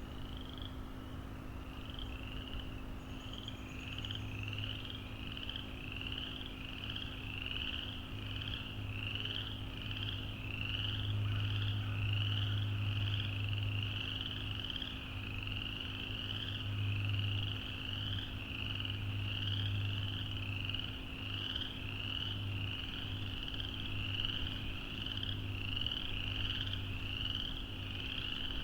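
A chorus of small frogs calling: many short, high-pitched rising calls repeated several times a second, overlapping into a continuous chorus.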